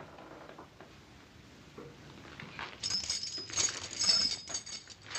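Metal wrist shackles and their chain jangling and clinking, starting about three seconds in, as the chained wearer moves.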